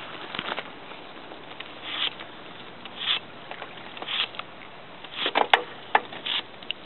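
Irregular short scuffs and crunches, about one a second, with a cluster of sharper ones about five seconds in.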